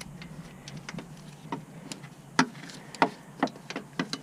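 A series of short, sharp clicks and taps from hand tools working on the starter mounting under the hood, irregularly spaced and coming faster near the end.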